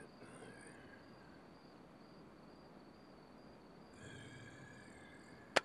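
Faint outdoor evening ambience: a steady high-pitched whine over a soft hiss, with one sharp click near the end.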